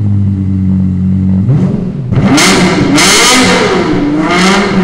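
Lexus LFA's 4.8-litre V10 idling steadily, then blipped three times in quick succession about a second and a half in, its pitch rising and falling with each rev. Loud.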